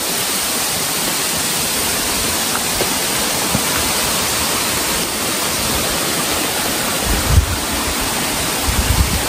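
Steady rush of running water from a mountain stream or small waterfall beside the trail. A few low thumps come near the end.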